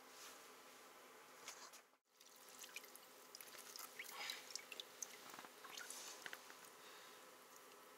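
Faint dripping and small splashes of water as a fishing line is pulled up by hand out of an ice hole. The sound drops out briefly about two seconds in.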